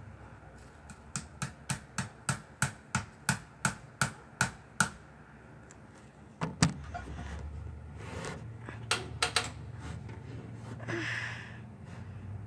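Starter clicking about three times a second without turning the engine over, a sign the engine won't crank. Then a heavier thump followed by a low steady hum, and a few more clicks.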